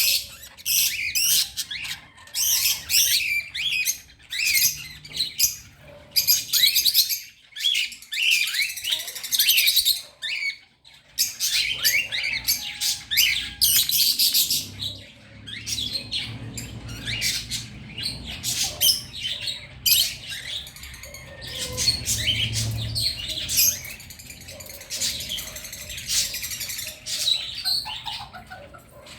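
A crowd of small birds chirping and squawking all at once: a noisy, dense din of short, overlapping high calls, with brief lulls now and then.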